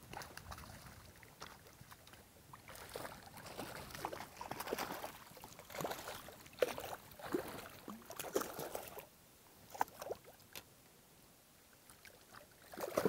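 A hooked cutthroat trout splashing at the surface of a shallow riffle as it is played in. There are irregular splashes and slaps of water, busiest from about three to nine seconds in, then quieter moving water.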